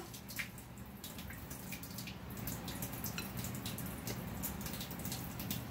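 Thin stream of water from a kitchen faucet trickling into a stainless steel sink: a steady, low-level trickle with scattered drip-like ticks.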